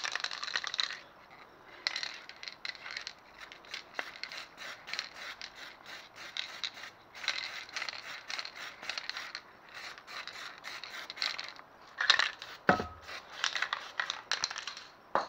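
Aerosol spray can of zinc primer spraying in a series of short bursts, with one sharper knock about twelve seconds in.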